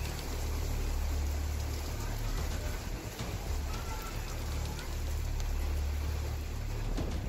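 Steady rain falling over a city, with wind buffeting the microphone as a low rumble that swells and eases.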